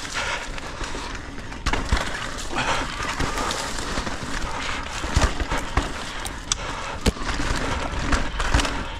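Santa Cruz Megatower mountain bike rolling over a rough, overgrown dirt trail: steady tyre and trail noise with frequent sharp clicks and knocks as the bike rattles over bumps.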